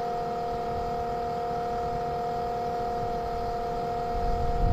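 Battery-powered Milwaukee transfer pump running steadily, its motor giving a constant whine with two strong steady tones over a low rumble as it pumps water.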